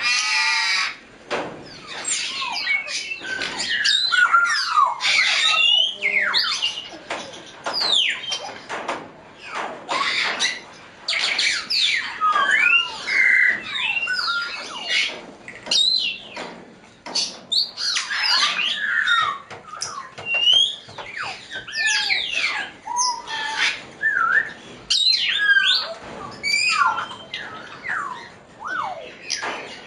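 African grey parrots calling: a continuous stream of short whistles that glide up and down in pitch, mixed with chirps, clicks and squawks.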